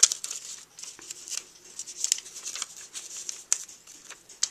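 Cut paper lettering being peeled off its adhesive backing sheet: an irregular crackly rustle of paper, with sharp ticks.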